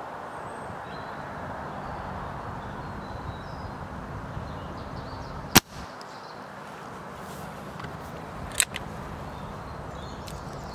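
Air Arms ProSport underlever spring-piston air rifle firing a single shot a little past halfway, a sudden sharp report, with a fainter short click about three seconds later. A steady background hiss runs underneath.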